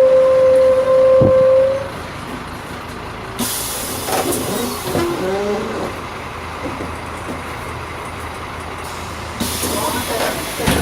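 On a Scania K310 city bus, a loud steady buzzer tone stops about a second and a half in. Compressed air then hisses out of the bus's pneumatic system, once about three and a half seconds in and again near the end.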